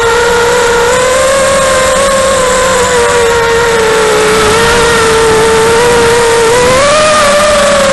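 5-inch racing quadcopter's four Xnova 2204 2300kv brushless motors spinning HQ 5040 tri-blade props, a loud steady whine heard from the action camera on the frame. The pitch wavers with the throttle, rises briefly about a second before the end, then eases back.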